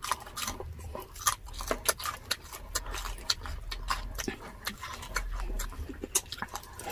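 Close-up chewing and biting of deep-fried pork knuckle (crispy pata), its crisp skin and meat, heard as many small irregular clicks and crackles, several a second.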